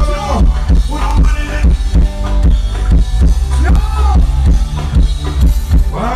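Loud music with a heavy bass line and a steady drum-kit beat, played over a concert sound system, with no vocals.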